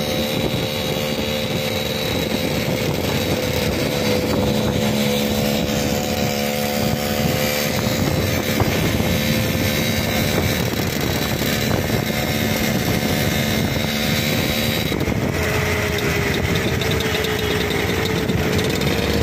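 TVS 50 moped's small two-stroke engine running at a steady cruising speed, heard from a vehicle riding alongside, under a constant rush of wind and road noise. The engine note drops slightly about fifteen seconds in.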